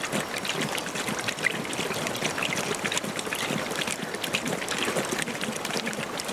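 Several lions lapping water with their tongues: many quick, irregular wet laps overlapping in a steady run.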